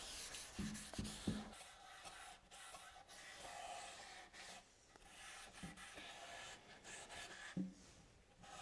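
Faint rubbing of a rag wiping oil finish onto a cherry wood box, with a few light knocks as the box is handled and turned.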